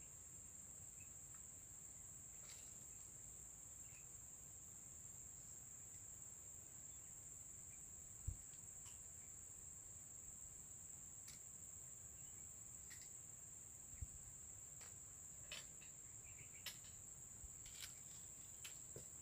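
Steady high-pitched drone of insects in the streamside vegetation, with scattered small clicks and two short soft thumps, about eight and fourteen seconds in.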